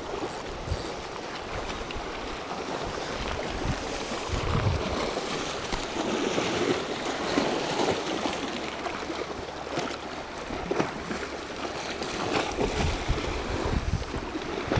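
Sea waves washing against shoreline rocks: a steady rush of surf that swells and eases.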